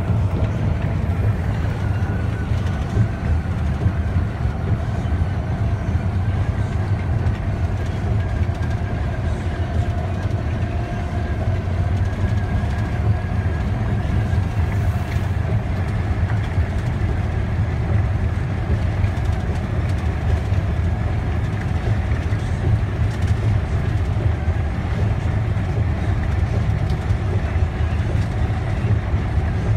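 Steady low rumble of tyres and engine heard inside a car's cabin while it drives at speed along a concrete bridge deck.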